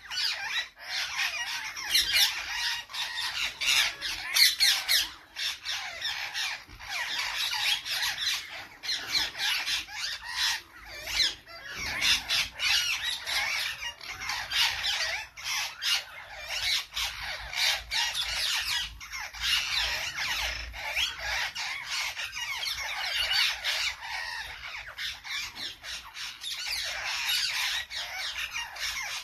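Parrots squawking and chattering without a break: a dense run of short, shrill calls.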